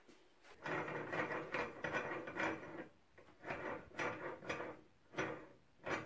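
Steel quick-release vise nut sliding on a zinc-plated threaded rod, metal rubbing over the threads in several strokes; the first stroke is the longest, about two seconds.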